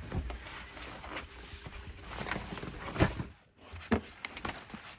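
Someone moving about and handling gear in a camper van: rustling and scattered knocks, the loudest knock about three seconds in. After a short dropout, a few footsteps outside.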